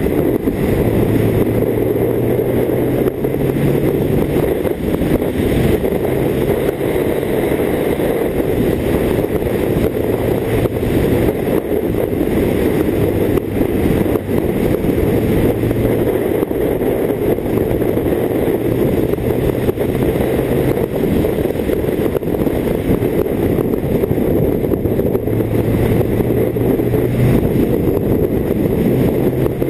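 Steady rush of riding wind on the microphone of a camera mounted on a BMW K1600GT touring motorcycle, with the bike's inline-six engine humming underneath. The engine note comes and goes and steps up and down in pitch with throttle and gear changes.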